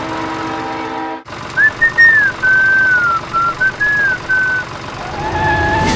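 A toy train's horn sounds steadily and cuts off about a second in. Then comes a whistled tune of short, gliding notes, the loudest sound. Near the end a rumbling hum builds up.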